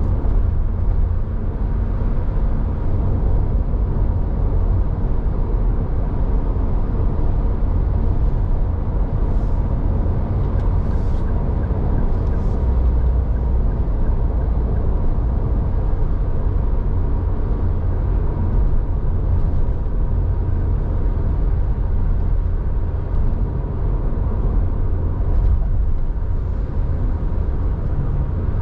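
Steady low rumble of road and engine noise from a car driving in traffic.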